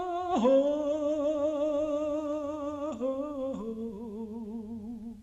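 An unaccompanied solo voice singing slow, long held notes with a wavering vibrato, stepping down in pitch three times and fading out near the end.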